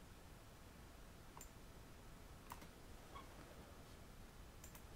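Near silence: room tone with a few faint, sharp computer mouse clicks spread through.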